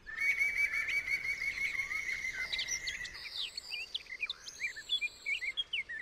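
Songbirds chirping: a fast trill of repeated notes for about the first three seconds, then several birds calling in short, quick chirps and whistles.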